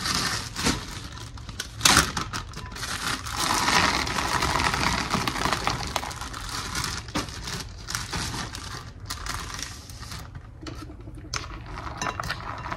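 Crinkling and rustling of a plastic zip-top bag as blueberries are poured from it into a glass mixing bowl, with a sharp knock about two seconds in. Softer rustling follows as the berries are tossed through the flour by hand.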